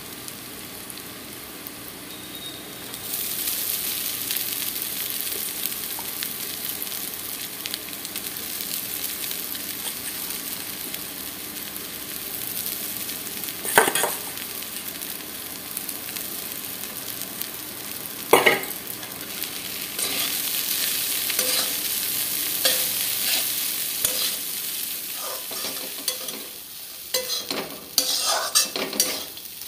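Oil and nuts sizzling in a steel kadai, the hiss growing louder about three seconds in. There are two sharp clanks near the middle, then a steel spatula stirring flattened rice (poha) and scraping repeatedly against the pan.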